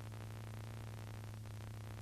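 Steady low electrical hum under an even hiss, with a faint tick about one and a half seconds in.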